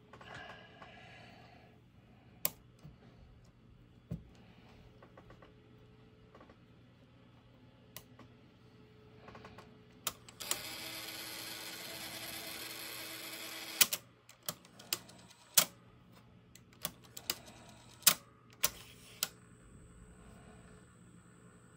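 Repaired Aiwa AD-3150 cassette deck transport: about ten seconds in, its motor and gears whir steadily for roughly three seconds. Then comes a quick run of sharp mechanical clicks from the mechanism as it is worked by hand.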